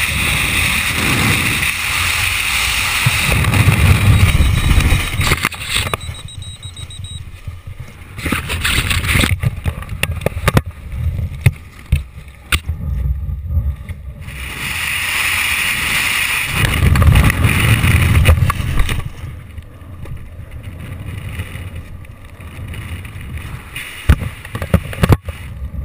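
Wind rushing and buffeting a camera microphone during a skydive and the deployment of a Sabre 2 parachute canopy. The loud rush comes and goes twice, and quieter stretches in between carry sharp snaps and flaps from the opening canopy.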